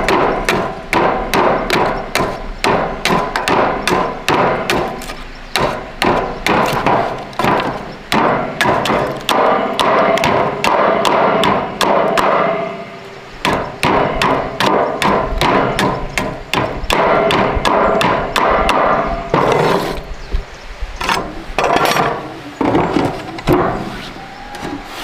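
A hammer striking repeatedly, several blows a second, with a brief pause about halfway through and a lull near the end.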